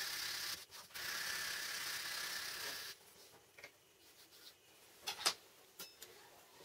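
Sandpaper rubbing steadily on a small wooden block, with one short break, stopping about three seconds in. It is followed by a few light clicks and taps as a steel ruler is handled and fitted into the wooden block, the sharpest a little after five seconds.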